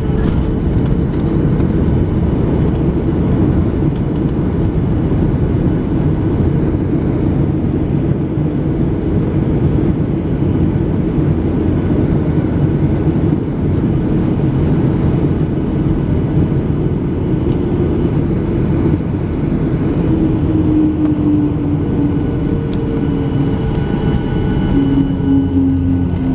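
Boeing 737-800 cabin noise on the landing approach: the steady roar of the CFM56-7B engines and the airflow. Over the last few seconds an engine whine falls in pitch.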